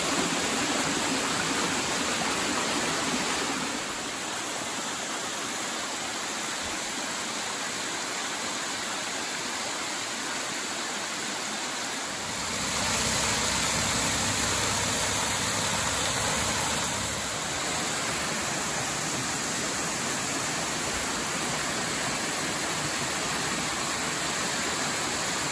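Steady rush of mountain waterfalls and cascades on Beaver Brook, water pouring over rock ledges. It drops slightly about four seconds in, then grows louder and deeper about twelve seconds in.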